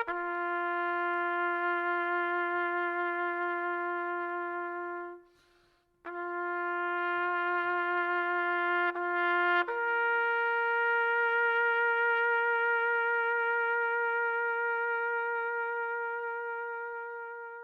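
A solo trumpet plays a slow memorial call in long held notes. There is a short break about five seconds in, then a step up to a higher note near ten seconds that is held and fades away at the end.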